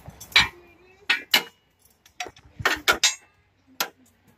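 Metal tools clanking and clinking against the engine and its hardware: a string of about eight sharp, irregular metallic knocks, some ringing briefly.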